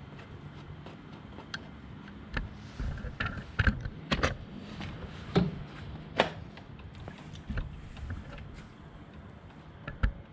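Scattered clicks and knocks from the controls of a Clinton 3.5 two-stroke outboard motor being handled, with the choke knob pulled and the throttle lever set before starting. A faint low steady hum runs underneath.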